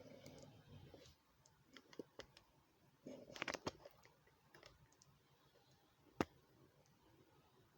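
Near silence broken by faint scattered clicks and taps, with a short cluster of them a little past three seconds in and one sharper click about six seconds in.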